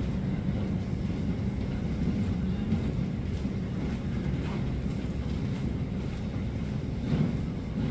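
Steady low rumble of a vehicle heard from inside, with a couple of faint knocks.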